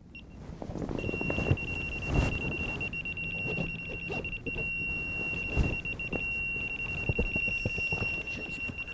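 Carp fishing electronic bite alarm giving one beep, then about a second in sounding a continuous high-pitched tone: a run, with a carp taking line off the rod. Underneath are rustling and knocks of someone scrambling to the rod.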